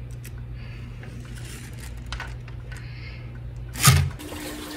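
Steady low hum of a room with a few faint clicks, then one loud, short thump near the end.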